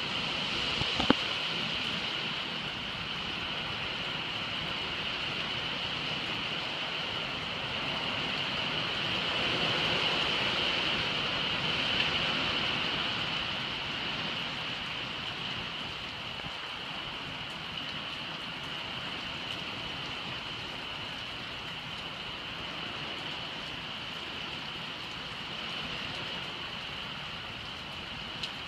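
Hurricane Irma's heavy rain hissing steadily on a pond and trees with gusting wind, swelling louder for a few seconds near the middle. There is one sharp click about a second in.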